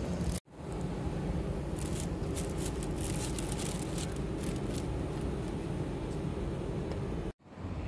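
Steady outdoor background noise, a low rumble with hiss. It drops out for a moment about half a second in and again near the end.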